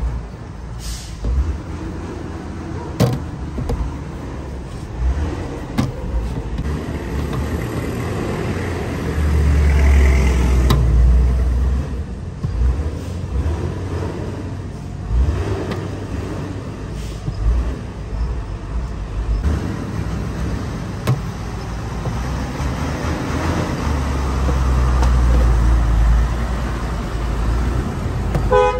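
Road traffic passing close by, with a low engine rumble swelling twice: about a third of the way in and again near the end. Short soft knocks and slaps sound now and then over it, as dough is worked by hand.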